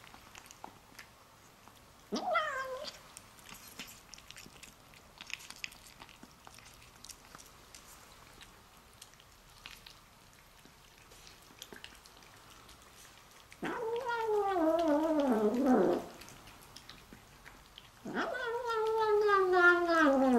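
Bengal-mix kitten singing excitedly over its food, a sound like "yum-yum-yum": a short falling call about two seconds in, then two long wavering calls that slide down in pitch near the end. Faint chewing clicks come between the calls.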